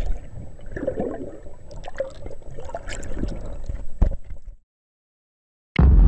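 Water bubbling and gurgling sound effect with scattered clicks and pops, cutting off sharply about four and a half seconds in. After a second of silence, a sudden deep boom hits near the end and rings on; it is the loudest sound here.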